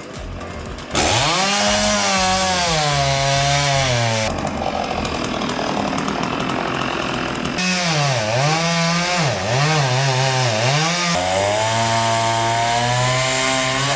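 Chainsaw engine running and being throttled up and down, with quick blips of the throttle, a noisier stretch in the middle and a steady high run near the end.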